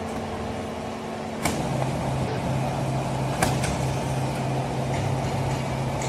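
Hydraulic baling press and its strapping machine running with a steady machine hum. About one and a half seconds in, a sharp click comes as the hum drops to a lower, stronger tone, and there is another sharp click about three and a half seconds in.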